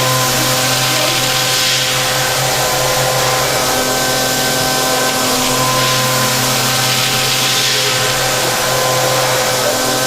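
CNC machining centre running: a steady mechanical rush with several steady whining tones that fade out and return partway through.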